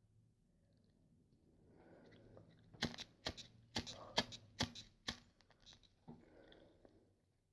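A lighter being handled and worked by hand: a run of about eight sharp clicks, bunched in the middle, among rustling handling noise.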